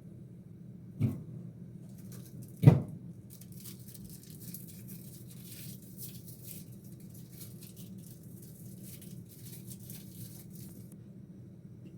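Two sharp knocks, the second louder, then about eight seconds of fine crackling or rustling that stops near the end, over a steady low hum.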